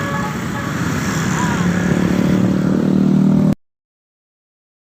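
Bus engine running and revving up as it passes, with the last short notes of its musical telolet horn at the start. The sound cuts off abruptly about three and a half seconds in to dead silence.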